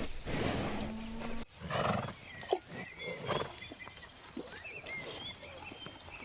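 Breathy, noisy animal calls, with a cut about a second and a half in, followed by short bursts while small birds chirp in the background.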